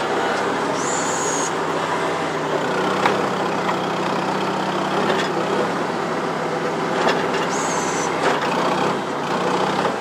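New Holland L425 skid steer's four-cylinder Wisconsin engine running while the loader moves dirt, its pitch stepping up a couple of seconds in and dropping again near the end. A short high squeal comes twice, about seven seconds apart.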